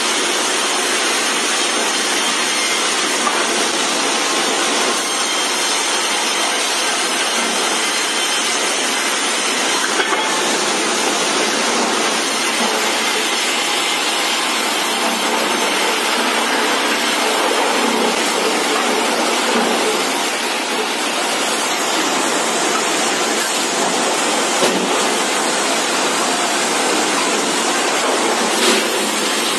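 Industrial band saw cutting lengthwise through a log, with the mill's feed rollers running: a steady, loud, hissing saw noise with a few light knocks.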